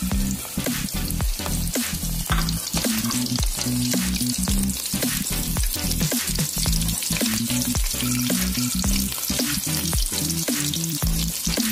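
Breaded stuffed onion rings deep-frying in hot oil: a steady sizzle with many sharp crackling pops. Background music plays underneath.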